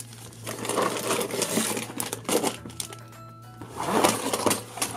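Cardboard toy box and plastic bags of building-block pieces being handled, with irregular rustling and light clicks and clatter, over soft background music.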